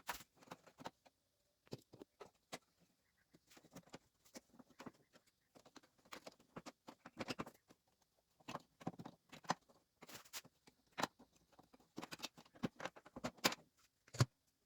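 Plastic keyboard keys being handled and cleaned: irregular light clicks and short scrubbing sounds, often in quick clusters.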